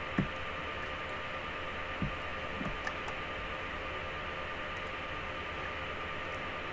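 Steady hiss with a faint hum, broken by a few soft low thumps in the first three seconds.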